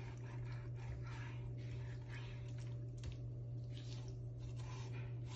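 Faint soft squishes and scrapes of a chef's knife slicing raw chicken breast meat away from the breastbone, over a steady low hum.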